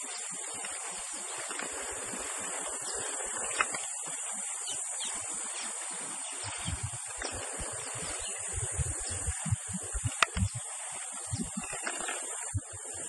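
Steady high-pitched insect buzz in the bush, with irregular low thumps in the second half and a couple of sharp clicks.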